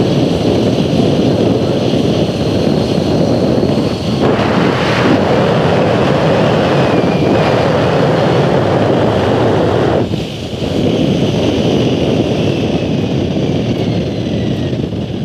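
Wind rushing over the microphone of an open-topped Test Track ride vehicle running fast on its outdoor track, a loud steady rush that swells from about four seconds in and eases near ten seconds.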